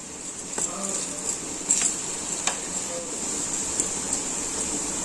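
Batti dough balls frying in oil in an appe pan with a steady sizzle, while a spoon clinks against the pan several times as the balls are turned over.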